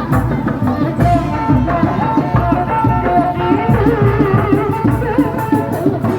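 Live kuda lumping ensemble music: hand drums beating a fast, dense rhythm under a wavering, ornamented melody line.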